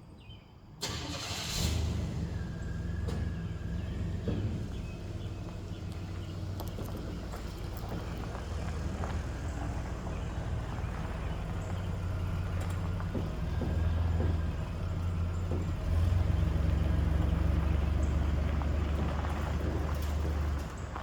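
1965 Chevy C10 pickup's V8 engine running steadily after it comes in abruptly about a second in, growing louder a couple of times later on.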